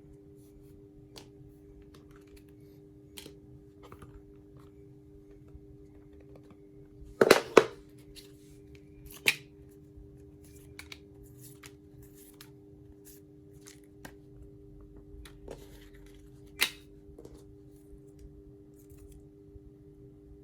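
Handling of a smartphone box and its packaging: scattered small clicks and scrapes, with a cluster of loud sharp sounds about seven seconds in and single loud ones about nine and sixteen seconds in. A steady low hum runs underneath.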